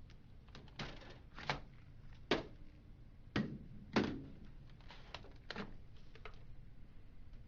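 Plastic clicks and knocks as the toner cover and toner cartridges are taken out of a Dell 5100cn colour laser printer: a handful of separate sharp thunks, the loudest about two and a half and four seconds in.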